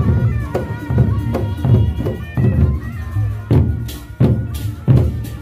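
Gendang beleq ensemble playing: large double-headed barrel drums beaten in a fast, driving traditional rhythm, with pitched ringing tones early on and several high crashes in the second half.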